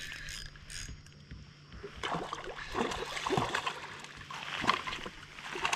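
A hooked walleye thrashing at the surface beside the boat, water splashing in irregular bursts that get busier from about two seconds in.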